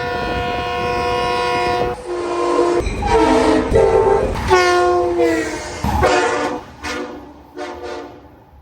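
Train horns sounding in a series of short clips: a held chord of several notes for about two seconds, then longer blasts that fall in pitch, then a few short blasts that fade out near the end, over the low rumble of the train.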